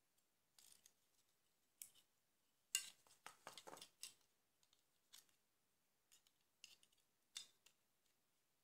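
Small plastic clicks and scrapes from a Nokia 1100's housing and inner frame as they are handled and pulled apart by hand. The clicks are scattered, with the sharpest one about three seconds in, followed by a quick run of clicks and rustling.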